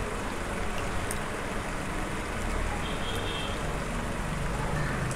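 Steady hissing sizzle of tomato paste and spices frying in a pan.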